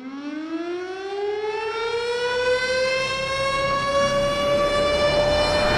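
Siren winding up: a single wailing tone that rises slowly and steadily in pitch and grows louder.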